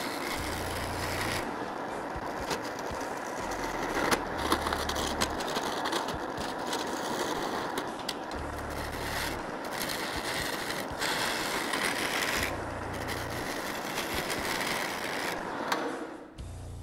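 A benchtop wood lathe running while a skew chisel shaves a spinning wooden blank: a steady scraping hiss of the cut with scattered sharp ticks. It stops about a second before the end.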